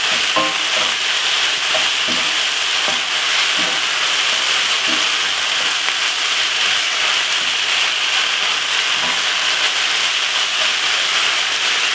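Minced meat sizzling steadily as it browns in a non-stick frying pan, with a wooden spatula stirring through it now and then.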